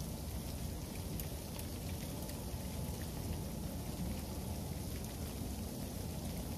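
Freezing rain falling steadily on a patio and yard: an even hiss with scattered light ticks of drops landing.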